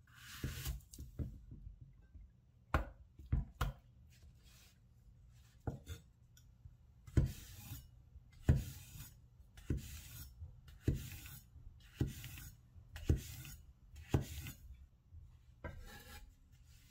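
Large cleaver-style knife slicing a zucchini lengthwise on a wooden cutting board. Hissing strokes as the blade draws through the flesh are broken by over a dozen sharp knocks of the blade on the board, at irregular spacing.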